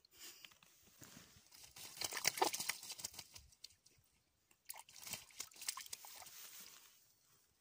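Common raven bathing in a shallow muddy puddle, splashing water with its wings and body in two bouts, about two seconds in and again about five seconds in.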